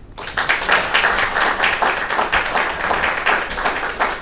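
An audience applauding. The clapping breaks out just after the start and carries on dense and steady.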